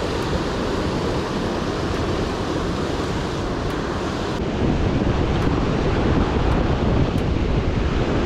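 Ocean surf washing against a rocky beach, with wind buffeting the microphone; the rush grows louder and deeper about halfway through.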